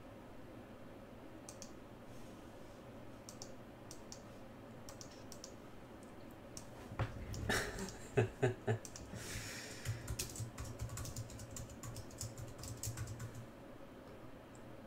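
Computer keyboard typing: a few faint scattered keystrokes, then several louder clacks about seven to nine seconds in, followed by a run of quick typing.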